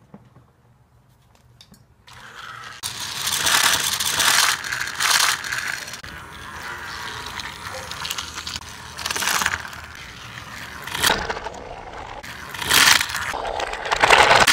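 Motorized Trackmaster Thomas toy engine running along plastic track with a continuous mechanical rattle. It starts about two seconds in and swells louder several times as the engine passes close by, loudest near the end.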